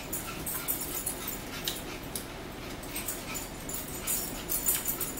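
A person chewing a mouthful of chicken close to the microphone, with repeated wet smacks and clicks of the mouth.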